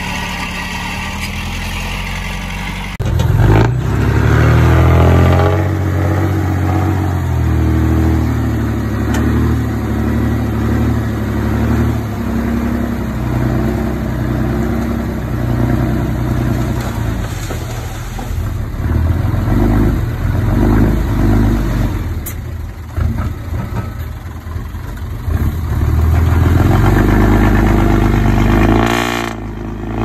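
Komatsu D20P bulldozer's diesel engine working. It runs steadily at first, then about three seconds in it becomes louder and revs up and down under load, easing off near the end.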